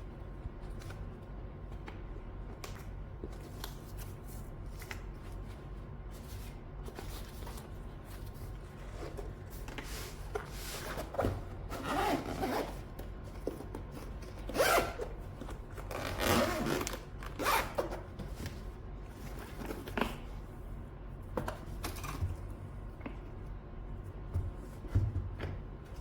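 Zipper of a keyboard carrying case being pulled open or shut in a few strokes, the longest and loudest around the middle. Light handling clicks and rubs come before and after.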